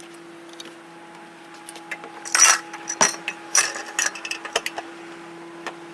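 Ceiling fan parts being handled and taken apart: a run of sharp clicks, knocks and rattles over a steady low hum.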